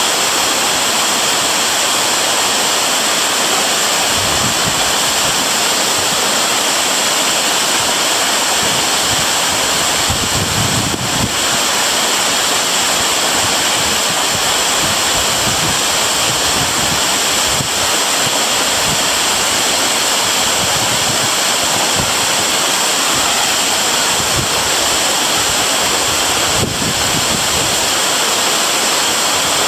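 Waterfall: a steady, loud rush of falling water that never lets up, with occasional faint low gusts on the microphone.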